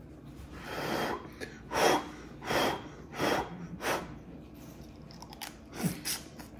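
Sucking the spicy juice off a boiled peanut shell: about five short, sharp slurps at the lips, roughly two-thirds of a second apart. A few soft clicks follow near the end.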